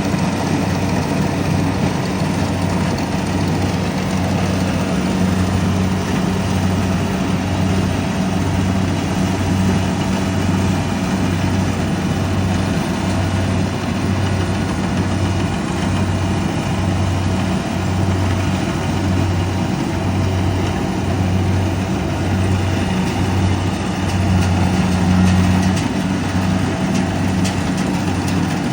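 Rice combine harvester's engine running steadily, with a low hum that pulses about once a second.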